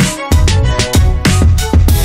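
Background music with a steady drum beat, about three beats a second, over deep bass.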